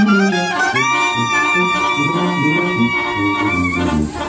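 Brass band music with a deep bass line under it; a high note is held for about three seconds from about a second in.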